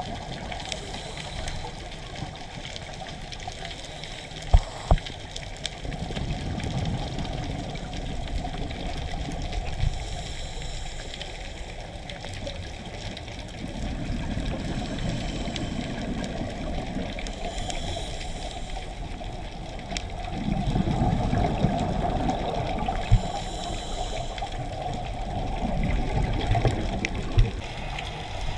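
Underwater recording of scuba breathing: exhaled bubbles from a regulator gurgle in louder low spells every several seconds, with short hisses between them. A few sharp knocks, two of them close together about four and a half seconds in.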